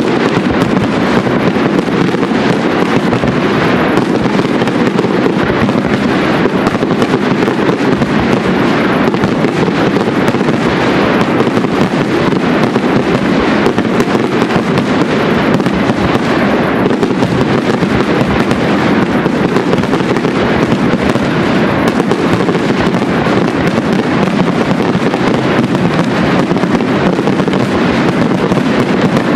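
Aerial firework shells bursting and crackling in a dense, unbroken barrage, loud and without pauses.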